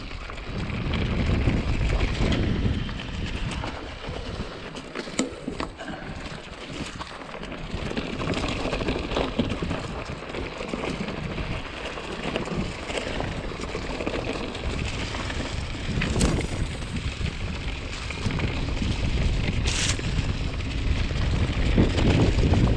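Wind buffeting the microphone of a mountain bike's handlebar camera, mixed with the rumble of knobby tyres rolling over a dirt singletrack and the rattle of the bike. A few sharp clicks stand out, and the wind rumble grows louder near the end.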